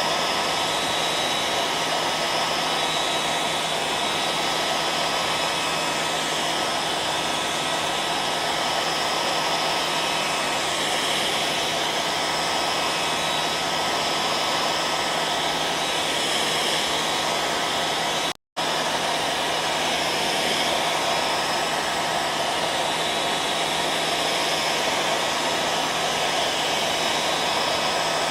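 Hair dryer running steadily: an even blowing rush over a constant motor hum. The sound cuts out completely for a split second about eighteen seconds in, then carries on unchanged.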